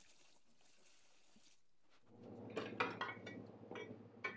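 Paint stripper poured from a jug into a plastic tub of metal saw castings, a faint liquid hiss. About two seconds in a low steady hum starts, and the metal parts clink and knock against each other and the tub as they are handled.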